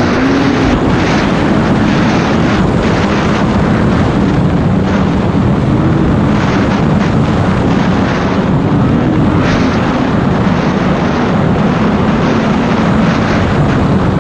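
Polaris Indy snowmobile engine running at trail speed on a groomed trail. Its note rises and falls a little with the throttle over a steady rush of noise.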